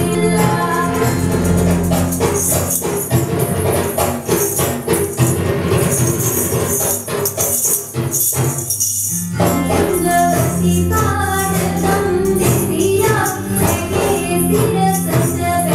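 Devotional music with singing over a steady low drone and dense jingling hand percussion; most of the music drops out for about a second around eight and a half seconds in, then resumes.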